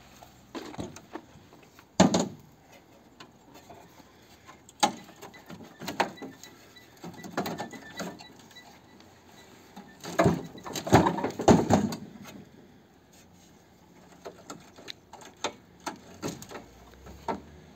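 Irregular knocks and clatter of tools and parts being handled during car disassembly, with one sharp knock about two seconds in and a dense run of clatter around the middle.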